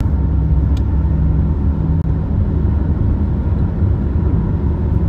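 Steady low rumble of road and engine noise heard inside a car cruising along a highway.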